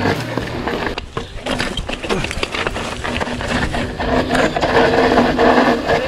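Mountain bike riding over a leaf-strewn dirt trail: tyres rolling on the ground, with frequent small knocks and rattles from the bike.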